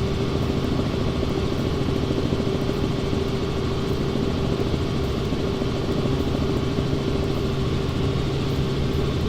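Helicopter engine and rotor noise heard from inside the cabin: a steady, even drone with a constant low hum.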